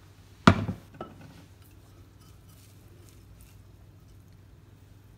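Kitchenware set down with one sharp, ringing clank, followed about half a second later by a lighter knock, over a faint steady hum.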